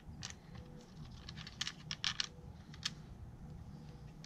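Light metallic clicks and taps of bolts and the transmission control module shifting against the RE5R05A automatic transmission's valve body as the module is lifted off, with a quick cluster of sharper clicks about two seconds in.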